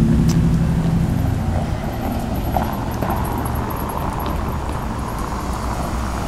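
Freight train rolling past: a steady rumble of wheels on the rails. A low drone fades out in the first second.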